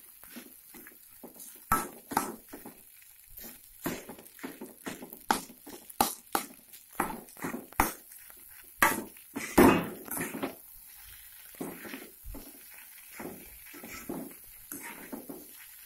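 Metal spatula scraping and knocking against a wok while stirring fried rice, in irregular strokes, with a louder run of scrapes about two-thirds of the way through.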